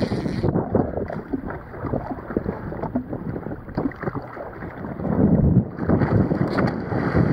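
Wind buffeting the microphone over water noise around a jet ski sitting on open sea, a gusty rushing that grows louder near the end.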